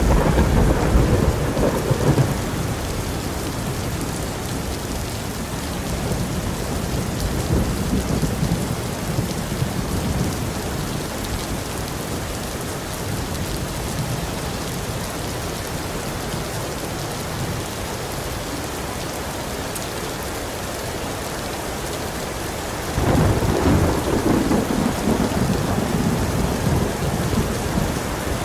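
Heavy rain falling steadily in a thunderstorm, with rolls of thunder: one dying away in the first couple of seconds, fainter rumbles a little later, and a louder roll that breaks suddenly near the end.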